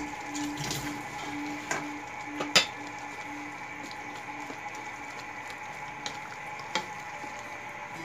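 Wooden spatula stirring thick chicken lomi noodle soup in a metal pan, with a few sharp knocks of the spatula against the pan, the loudest about two and a half seconds in, over the steady sound of the simmering broth.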